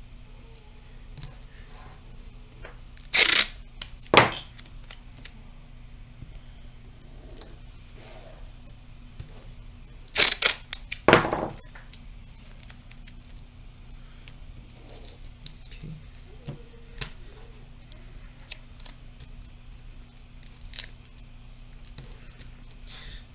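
Masking tape being pulled off its roll and torn in short loud rips, two pairs of them, with light crinkling and tapping of the aluminum foil and paper as the tape strips are pressed down between the rips.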